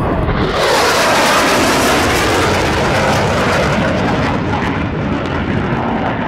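Two F/A-18 Hornet jets passing by, a loud jet engine roar that swells sharply within the first second, stays strong for a couple of seconds, then slowly eases off.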